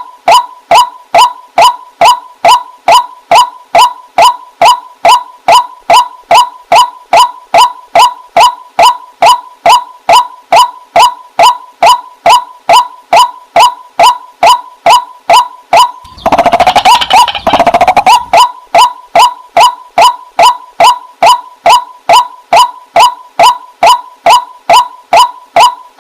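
White-breasted waterhen ('wak wak' bird) calling, one loud note repeated about twice a second at an even pace. A louder, rougher burst of calling breaks in briefly about two-thirds of the way through.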